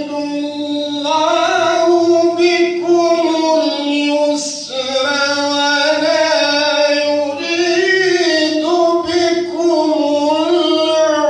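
A man reciting the Qur'an in a high, melodic chant into a microphone. He holds long, ornamented notes that waver up and down, with a short break about four and a half seconds in.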